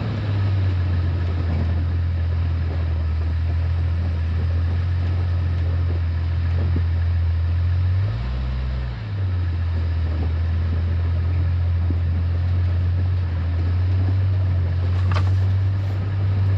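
Jeep's engine and drivetrain making a steady low drone while driving, rising and falling briefly in pitch about eight seconds in. A single sharp click near the end.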